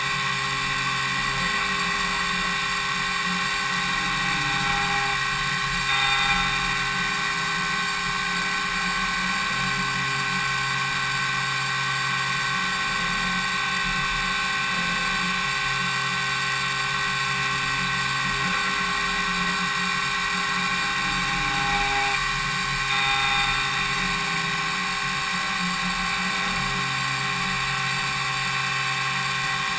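High-speed spindle of a DMU 70V five-axis CNC machining centre milling impeller blades: a steady high whine made of many held tones, with two brief louder swells, about six seconds in and again near twenty-three seconds.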